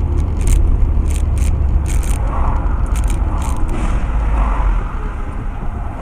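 Car driving on a city street, heard from a dashcam inside the cabin: a steady low rumble of engine and road noise. Several short, sharp clicks in the first few seconds.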